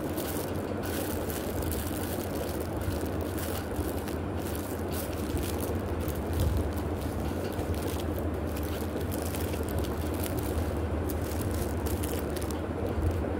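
Plastic packaging crinkling and rustling in irregular crackles as it is handled, over a steady low hum.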